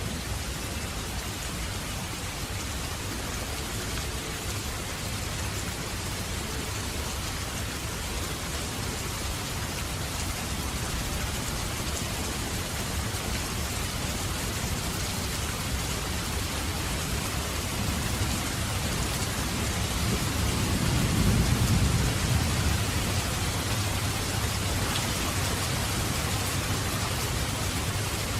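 Steady heavy rain falling, a continuous hiss, with a low roll of thunder swelling and fading about three quarters of the way through.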